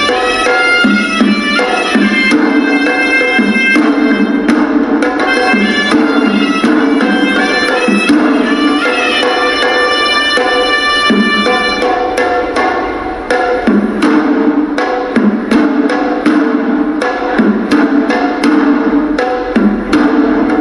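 Hewisi ritual music: Sri Lankan temple drums beating a fast rhythm under the horanewa, a reedy shawm, playing a wavering melody. About twelve seconds in the shawm drops back and the drum strokes stand out.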